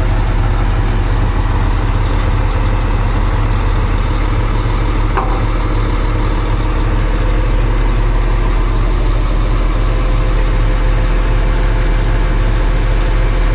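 Concrete pump truck's diesel engine running steadily with a low, heavy drone, its power take-off engaged to drive the hydraulics while the outrigger jacks are set. A brief faint click about five seconds in.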